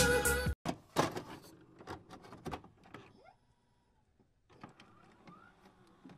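Intro music cuts off suddenly about half a second in. A few faint, short clicks and brief sweeping sounds follow over the next two seconds, then it goes nearly quiet.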